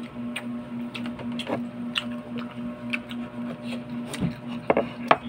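Scattered small clicks and knocks of people eating at a table, food and bamboo skewers being handled, with sharper knocks near the end, over a steady low hum.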